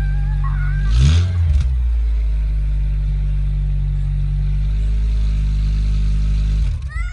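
Honda Odyssey RB1's 2.4-litre four-cylinder engine idling cold, with a brief blip of revs about a second in and faint whining tones above the idle, then switching off near the end. The owner puts the abnormal noise on a cold start down to the power-steering pump.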